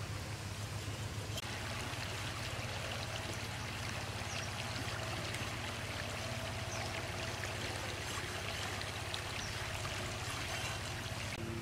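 Steady rushing of a flowing stream, with a few faint high chirps.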